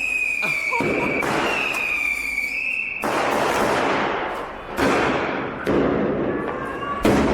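Fireworks going off at close range. A high whistle falls slightly in pitch over the first three seconds, then comes a series of about five sharp bangs one to two seconds apart, each trailing off in a noisy rumble.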